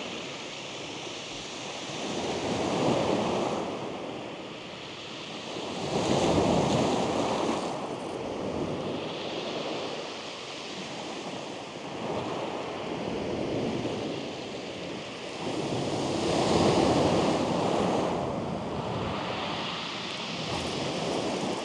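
Small waves breaking on a shingle beach, the surf swelling and fading again about every three to four seconds.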